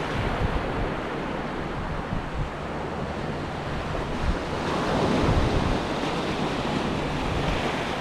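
Sea waves breaking and washing up the shore on an incoming tide, a steady surf that swells about halfway through. Gusts of wind rumble on the microphone.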